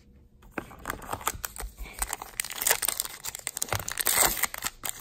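Foil wrapper of a baseball card pack being torn open and crinkled in the hands: a dense run of sharp crackles starting about half a second in, loudest in the second half.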